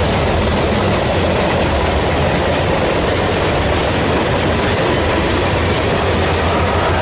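Freight train cars, lumber-laden centerbeam flatcars and then tank cars, rolling past close by with a loud, steady noise of steel wheels on rail.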